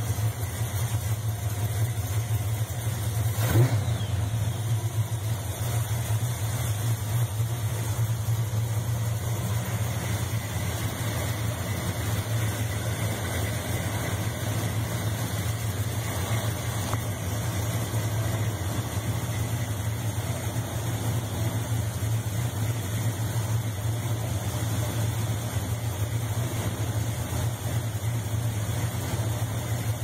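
Valiant Charger's 371-cubic-inch small-block Mopar V8, fitted with a 280-duration cam, idling steadily during a vacuum test. There is one brief louder moment about three and a half seconds in.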